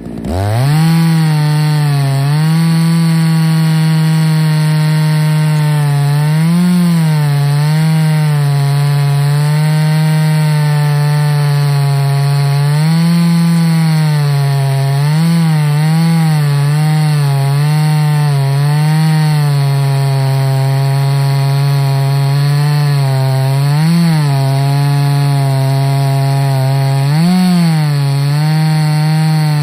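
Ported Husqvarna 288XP two-stroke chainsaw at full throttle in an Alaskan chainsaw mill, ripping a slab lengthwise through a white oak log. The engine holds a steady high pitch under load, with several brief rises in revs.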